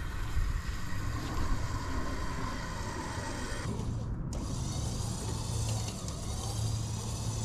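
Steady low engine hum of the vehicle towing an old liquid-cooled Generac generator across a lawn on PVC pipe rollers, with light mechanical rattling.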